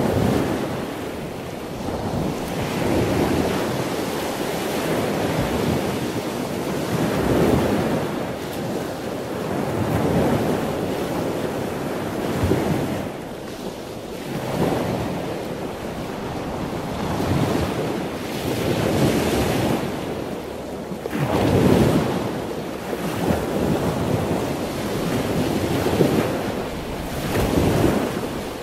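Ocean surf: waves breaking and washing up the beach in rolling surges every few seconds, with wind buffeting the microphone.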